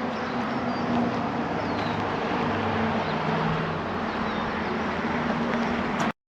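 Outdoor ambience: a steady vehicle hum with a few short bird chirps. It cuts off abruptly to silence near the end.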